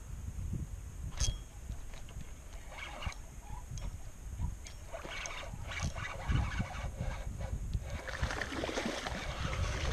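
Water splashing and sloshing around a kayak in bursts a couple of seconds apart, typical of paddle strokes, over a low rumble of wind on the microphone. A brief click about a second in.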